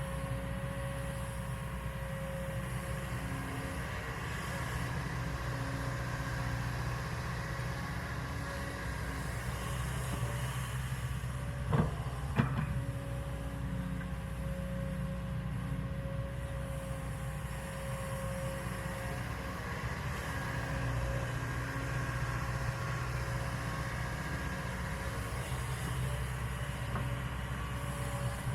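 Kobelco 220 excavator's diesel engine running steadily under work, with a steady hydraulic whine over it. Two sharp knocks about halfway through.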